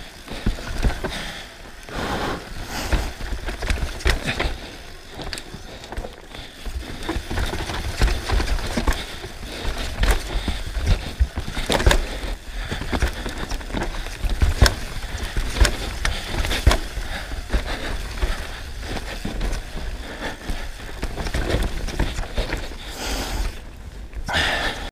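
Downhill mountain bike, a Specialized Demo 8, riding fast down a rough rocky trail: tyres rolling over rock and dirt with frequent sharp clattering knocks from the bike, and wind rumbling on the microphone.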